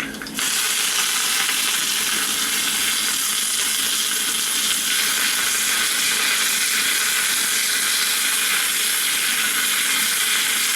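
Curry leaves and dried red chillies hitting hot oil with mustard seeds for a tempering. A loud, steady sizzle starts suddenly about half a second in and holds evenly.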